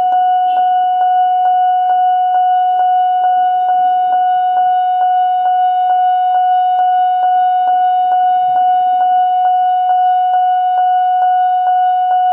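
Railway level-crossing warning siren sounding a steady, unbroken high tone with a rapid ticking about three times a second.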